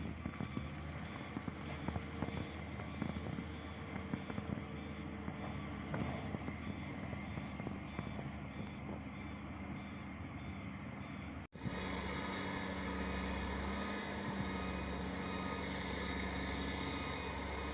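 Heavy earthmoving machinery at work: diesel engines running, with scattered clanks and knocks. After an abrupt cut about two-thirds through comes a steadier, slightly louder engine drone.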